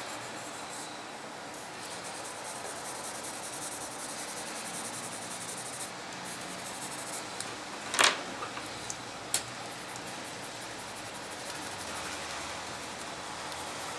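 Coloured pencils scratching across drawing paper in quick hatching strokes, over a steady hiss. A sharp click sounds about eight seconds in, with a smaller one a little over a second later.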